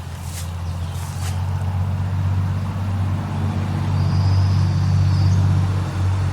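An engine running with a steady low hum that grows louder over the first few seconds, with a few sharp clicks in the first second or so.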